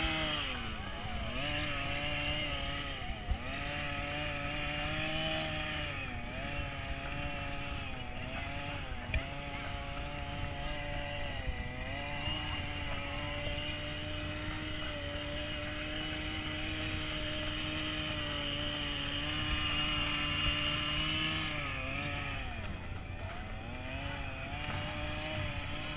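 Small two-stroke engine of a gas-powered RC car running at a steady high speed. It eases off and picks back up several times, with the pitch dipping each time.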